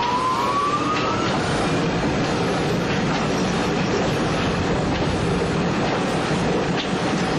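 Schwarzkopf Jet Star II roller coaster train running on its steel track: a steady rumble with occasional clicks, and a brief rising squeal in the first second.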